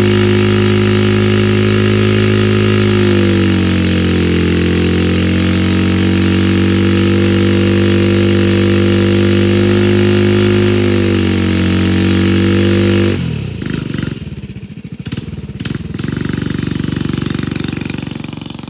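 Single-cylinder four-stroke 99cc Coleman mini bike engine held at high revs with the rear wheel spinning in the dirt, its pitch dipping and recovering twice. About thirteen seconds in the engine note drops off sharply, and the sound turns uneven and fades as the bike pulls away.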